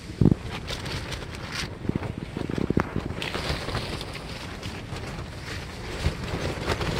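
Strong wind buffeting a tent, heard from inside: the fabric walls flapping and rustling with a constant rush of wind, and heavy thumps about a quarter second in and again between two and three seconds in as gusts slap the walls.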